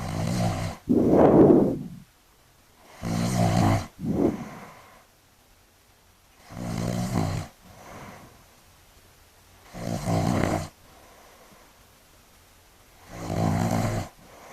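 A middle-aged man snoring loudly in his sleep: five snores about three seconds apart, several followed at once by a shorter second snore.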